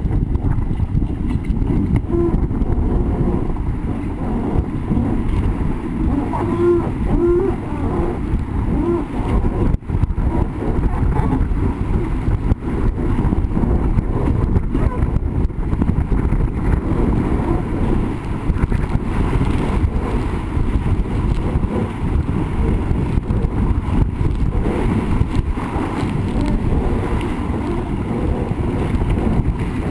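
Wind buffeting the microphone and water rushing and splashing along a sailing dinghy's hull as it sails fast, a loud, steady, low rumbling noise with spray hitting the camera.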